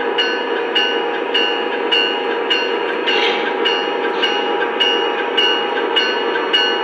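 Lionel Amtrak Acela model train's onboard sound system ringing a bell evenly, a little under two strokes a second, over a steady running hum as the train moves along. A brief hiss comes in about three seconds in.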